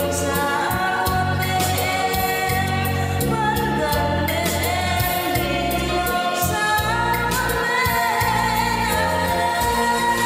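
Vietnamese song: a female voice singing long held notes over a band accompaniment with a bass line and a steady beat.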